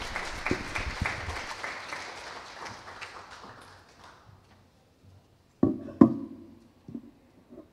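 Audience applauding, dying away over the first four seconds or so, followed by two short, loud thumps near six seconds in.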